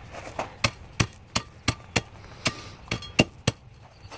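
A 10-by-10-inch hand tamper pounding down the pea-gravel base, about eleven sharp, uneven strikes at roughly three a second, some with a short ring after them.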